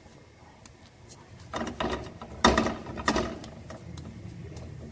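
Spatula working two flatbreads about on a flat tawa: a rattling, grinding clatter that starts about one and a half seconds in and lasts about two seconds, loudest near the middle.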